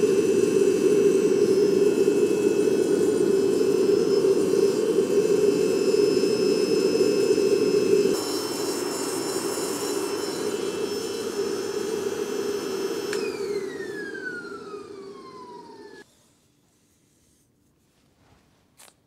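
Blower of a fluid-bed hot-air coffee roaster running loudly with a high whine, turned down about eight seconds in. Then it is switched off: the whine falls in pitch as the fan spins down, and the noise stops about sixteen seconds in.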